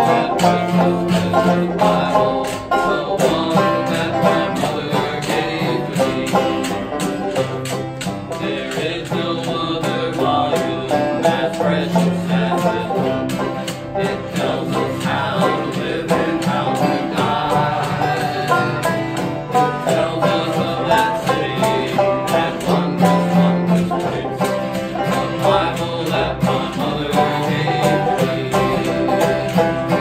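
Acoustic string band playing a country gospel song: acoustic guitar strumming and banjo picking over held low notes from a washtub bass, with men singing together.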